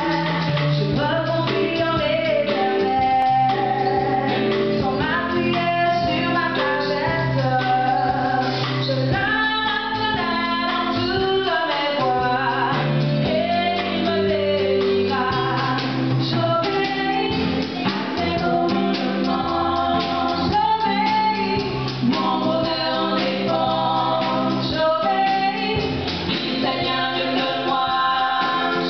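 Female voices singing a gospel song through hand-held microphones and a PA, a lead voice with others joining, over a steady low accompaniment.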